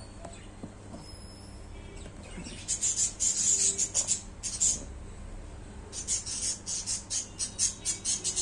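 Smartwatch box packaging handled by hand: two bursts of rapid crinkling and scraping, one from about two and a half seconds in until five, the other from six seconds on.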